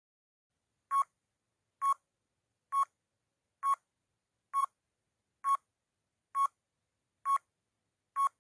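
Countdown timer sound effect: nine short beeps, evenly spaced just under a second apart, starting about a second in.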